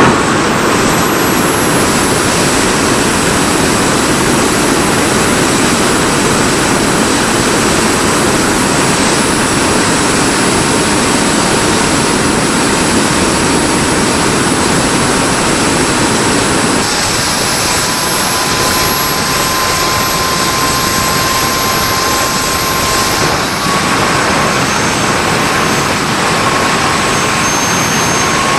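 Handmade turbojet engine running steadily on its thrust stand: a loud, even roar with a high turbine whine. The whine dips slightly early on and rises again a little past the middle.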